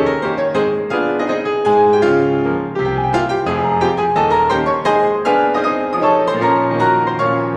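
Background music: solo piano playing a flowing melody of quickly struck notes.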